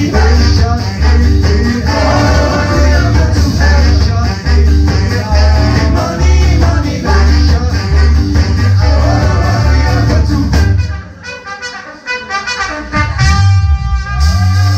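Live ska band playing: a steady bass line and drums under brass horns and singing. About eleven seconds in, the band drops out for a short break, then comes back in full near the end.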